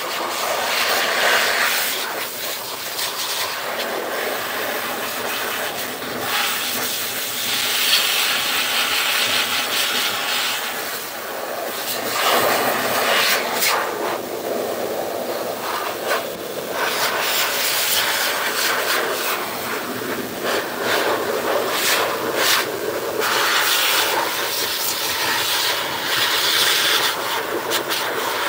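Pet grooming blower blowing a steady rush of air through its corrugated hose onto a cat's wet fur, the hiss changing in tone as the nozzle moves over the coat.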